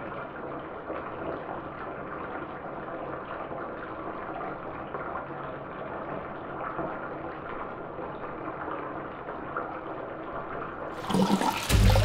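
Muffled, steady underwater wash of bath water, heard as if from below the surface. About eleven seconds in, the sound abruptly opens up and grows louder with splashing water as the head breaks the surface.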